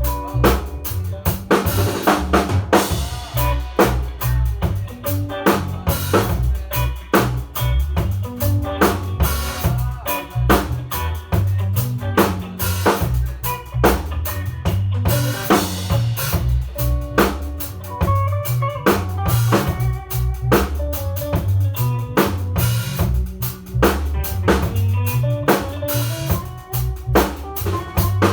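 A band playing an instrumental passage: drum kit with kick drum, snare and rimshots keeping a busy steady groove over a deep bass line, with other pitched instruments playing short notes.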